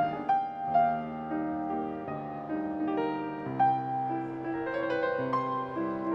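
Piano music: a melody over chords, the notes struck cleanly and left to ring.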